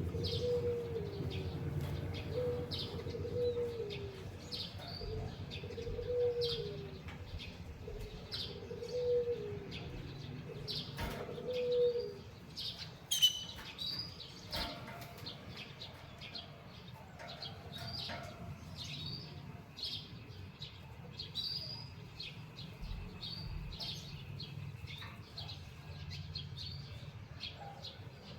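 Small cage birds, a canary and a white-headed munia, giving short high chirps every second or so. A lower call repeats about every second and a half during the first twelve seconds, over a steady low hum.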